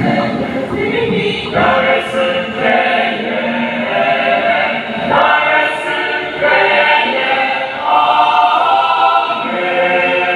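A choir singing together in many voices, phrase after phrase with short breaks between.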